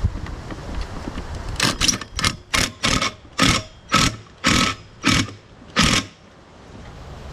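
Impact wrench run in about ten short bursts, tightening the blade bolt onto the lawn tractor's mower deck spindle.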